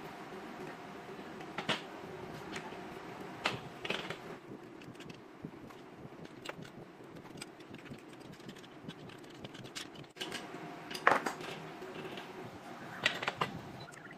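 Metal parts clinking and knocking a few times as a small engine and steel brackets are handled and fitted into a steel frame, over a steady background hum. The sharpest knock comes about eleven seconds in.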